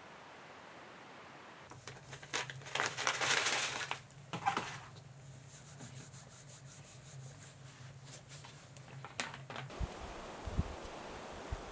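Wood fire in a hut stove crackling with a crinkling noise, loudest a couple of seconds in, and a few sharp clicks. From about ten seconds in this gives way to wind on the microphone with rustling.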